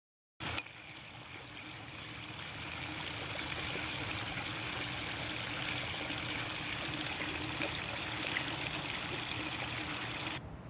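Steady rushing noise of running water, with a faint low hum beneath; it starts abruptly just after the start and drops away suddenly near the end.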